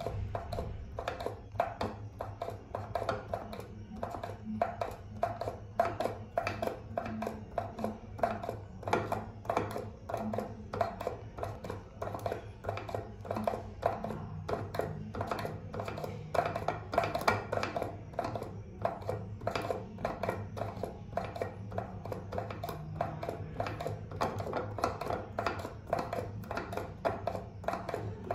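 Pump of an empty liquid-soap dispenser being pressed over and over, clicking with each stroke at about two to three a second; only air comes out, because the soap has run out.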